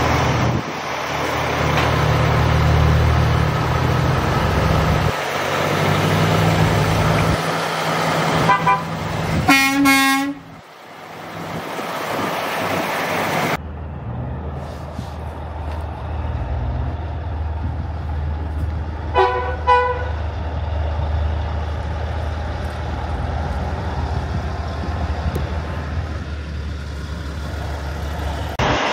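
Big-rig semi trucks' diesel engines rumbling as they roll slowly past. A long air-horn blast sounds about a third of the way in, and two short toots come about two-thirds through.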